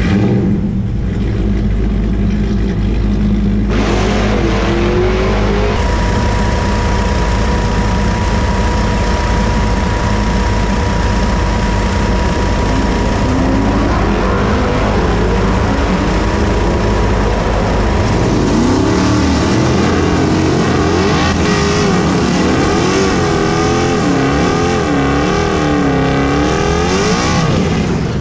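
Big V8 pickup-truck engines running loud at the drag strip, with a thin steady whine through the middle. From about halfway on, an engine revs up and down over and over as a pickup does its burnout.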